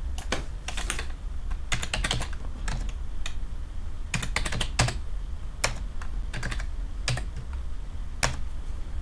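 Typing on a computer keyboard to enter numbers: irregular clusters of sharp keystroke clicks with short gaps between them.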